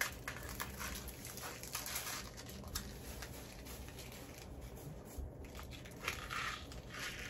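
Thin plastic film crinkling and tearing as it is peeled off a small pack of mints, in short irregular crackles.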